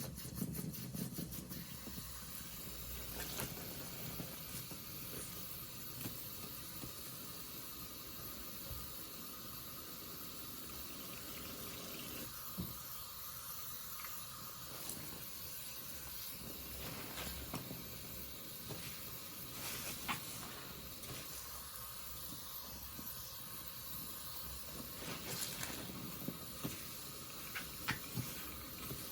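A sponge soaked in purple Pine-Sol and bath crackles being squeezed: a steady wet fizzing hiss of soapy lather with scattered crackles.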